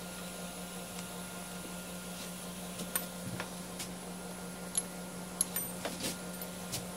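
Light metallic clicks and taps, scattered and more frequent in the second half, as the lathe's removed steel spindle assembly and indexing plate are handled, over a steady low hum.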